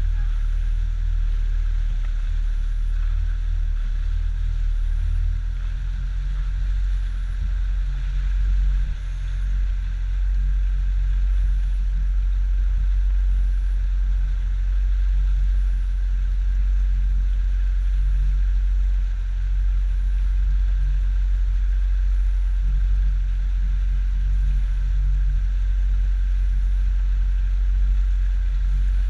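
Outboard motor of a small fishing boat running steadily at cruising speed, a constant low drone heard from the bow.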